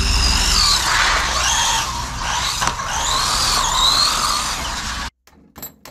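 Brushed electric motor of a WLtoys 124019 1:12 RC car whining up and down with the throttle over a loud rush of tyre noise as it drives on asphalt. The sound cuts off abruptly about five seconds in, followed by a few sharp clicks.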